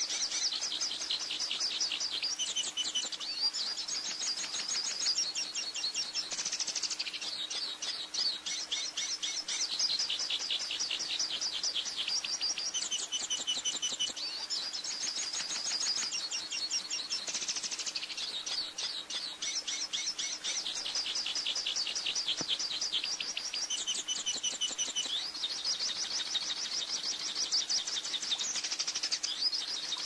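Hooded siskin singing a long, rapid, twittering song of fast, high chirps and trills, pausing only briefly now and then.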